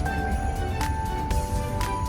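Music: a simple melody of held notes stepping upward in pitch, with a steady beat, over a low rumble.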